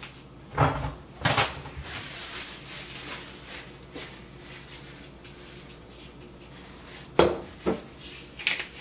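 Knocks and clatter of kitchen items handled on a countertop, loudest about a second in and again near the end, then a pepper grinder starting to click as it is turned.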